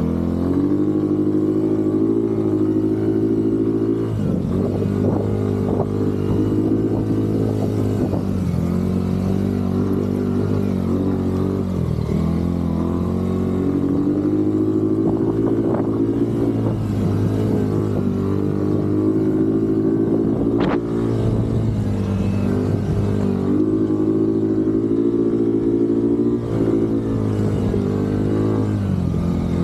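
Yamaha quad bike (ATV) engine running under throttle while being ridden, its pitch climbing and dropping back every few seconds as the throttle and gears change. A single sharp knock comes about two-thirds of the way through.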